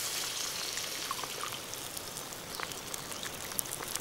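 Water poured from a plastic bottle into a hot, steaming skillet of vegetables: a steady trickling pour.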